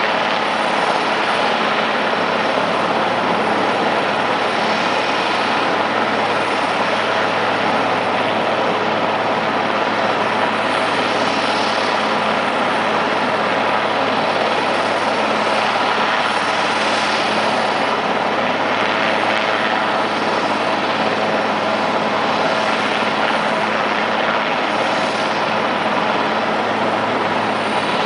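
Super Puma twin-turbine helicopter hovering: a steady rotor and turbine noise with a low hum under it, unchanging throughout.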